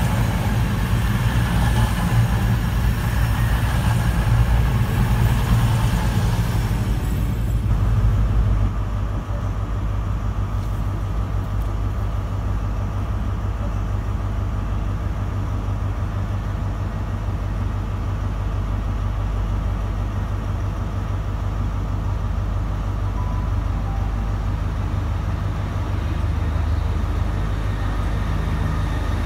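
A CrossCountry Voyager (Class 220/221) diesel multiple unit's underfloor diesel engines and wheels running past at close range. About eight seconds in, the sound cuts to a steadier low diesel rumble as a Great Western Railway Class 158 unit approaches the platform.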